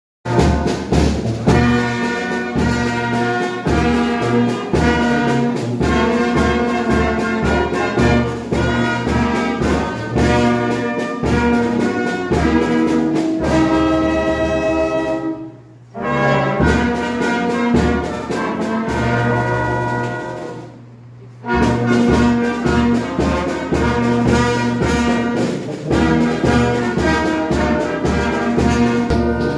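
Brass-led music with trumpets and trombones over a steady, rhythmic low beat. It breaks off briefly about halfway through, and again about two-thirds of the way in, before resuming.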